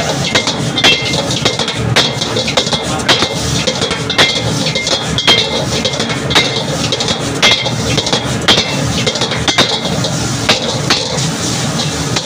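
A long-handled metal spatula strikes and scrapes a wok as noodles are stir-fried, with a sharp ringing clank about once a second and lighter clinks between. Underneath is the steady roar of a high gas burner.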